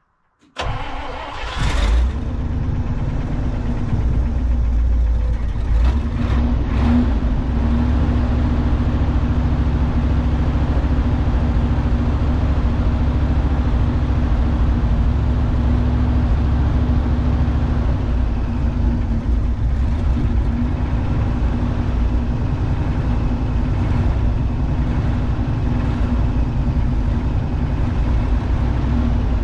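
The International Loadstar's gasoline V8 is cranked and fires about half a second in. It catches and settles into a steady run about two seconds in, holding an even idle.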